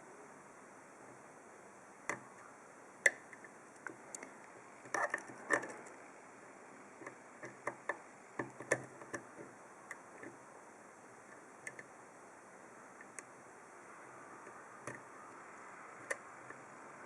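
Flag pick ticking and scraping against the pins inside an Abus D10 dimple euro-profile lock cylinder, held under light tension from a Z-wrench. Faint, irregular small clicks, with a quick cluster about five seconds in.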